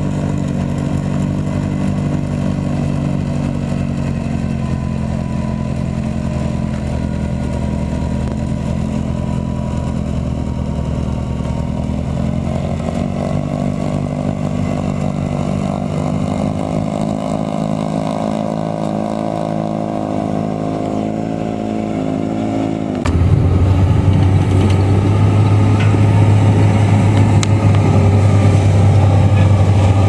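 Tractor engine running steadily under load while driving a front-mounted snowblower. About two-thirds of the way through, the sound cuts abruptly to a louder, deeper diesel engine, a wheel loader working snow.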